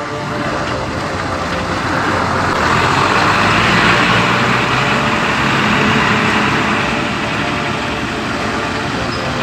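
Diesel tanker truck driving slowly past on a rutted mud road, engine running and tyres on the wet dirt, growing loudest about halfway through as the cab passes close and then easing off.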